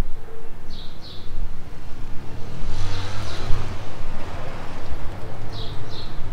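Street sound: a vehicle passes by in the middle, its noise swelling and fading over about two seconds. A small bird gives short high chirps in pairs near the start and near the end.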